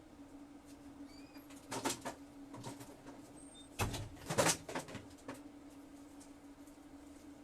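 A steady low electrical hum, with a few short knocks and rustles about two seconds in and again around four seconds in.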